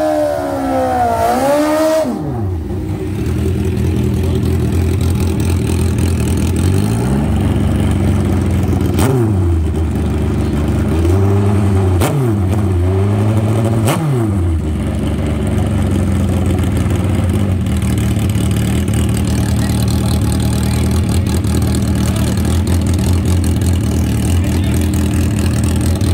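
Drag-racing motorcycle engine. A high engine note falls away in the first two seconds, then the engine idles steadily, is blipped several times between about 7 and 14 seconds in, and settles back to idle.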